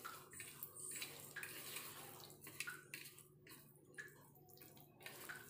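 A hand mixing raw chicken drumsticks in a wet spice marinade in a steel bowl: faint, irregular wet squelching.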